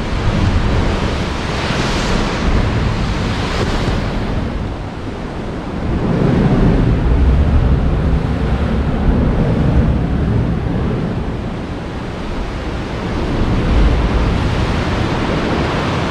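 Sea waves surging into a rock sea cave: a loud, continuous rushing wash that swells and ebbs several times, the biggest surge about six seconds in.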